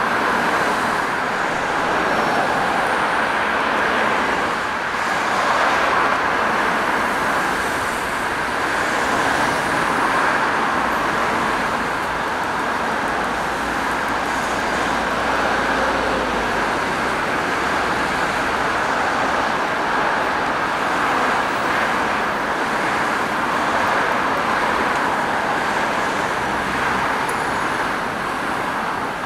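Steady road traffic on a multi-lane city street: cars passing, their tyre and engine noise swelling and fading as they go by.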